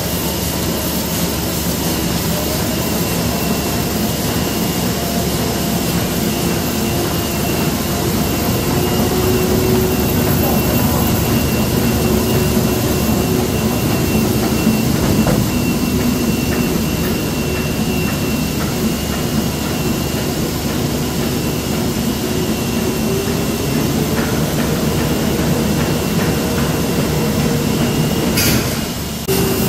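Heidelberg Speedmaster SM 102 four-colour sheetfed offset press running: a steady, loud mechanical whir with a low hum whose pitch steps up about six seconds before the end. The sound breaks off briefly near the end.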